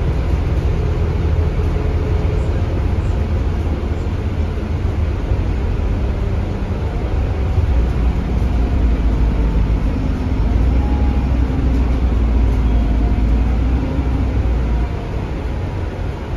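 Scania K320UB city bus running under way, its rear-mounted Scania DC9 five-cylinder diesel engine and ZF Ecolife automatic gearbox heard from inside the cabin, with a faint whine that rises and falls. The sound drops a little in level near the end.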